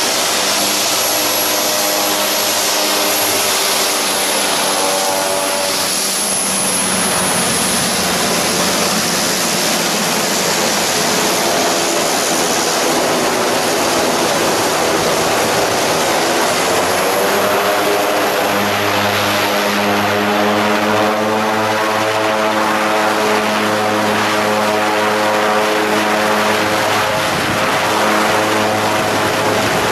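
Dornier 228's twin Garrett TPE331 turboprop engines running close by as the plane taxis and turns, a high turbine whine over the propeller drone. From a little past halfway the engine tones grow stronger and climb in pitch as power is added.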